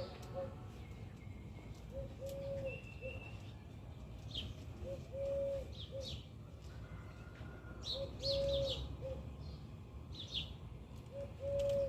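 A dove cooing a three-note phrase, short–long–short, repeated about every three seconds, with small birds chirping briefly over it.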